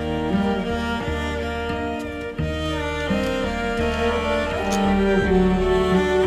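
Background music with sustained low notes and a bass line, the notes changing about every second.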